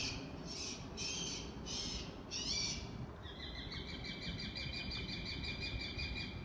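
Great horned owl fledglings giving raspy, hissing begging screeches, the calls of hungry young owls waiting to be fed. A run of short screeches comes about two a second, then from about three seconds in a single long drawn-out screech.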